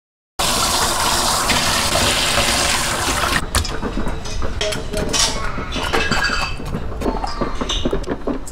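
Water running steadily for about three seconds, then stops abruptly. Irregular wet handling sounds with light clicks follow as hands work raw ginger onto whole sunfish in a steel bowl.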